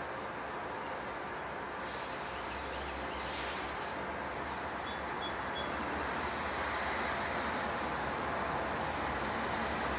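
Distant diesel freight train approaching, its locomotives' engine rumble growing gradually louder as it nears.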